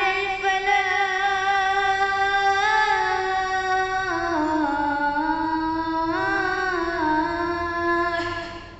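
A boy's unbroken voice chanting the azan, the Islamic call to prayer, in one long ornamented held phrase. The pitch dips about four seconds in, rises again about two seconds later, and the phrase ends shortly before the end.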